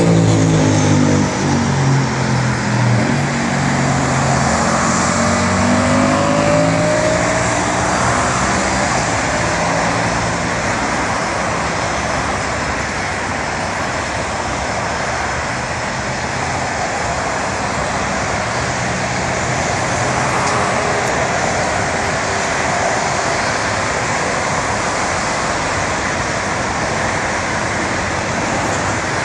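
Steady road traffic noise from a busy highway. A car passes close by at the start, its engine note falling in pitch as it goes by.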